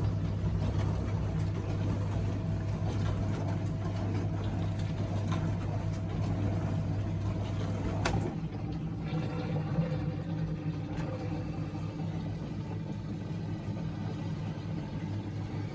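Bosch dishwasher running mid-wash-cycle: a steady motor and pump hum. A sharp click comes about eight seconds in, after which the hum turns rougher and a little quieter.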